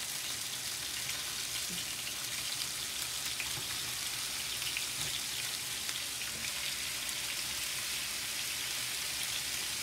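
Chicken drumsticks frying in an electric skillet: a steady sizzle with scattered small crackles.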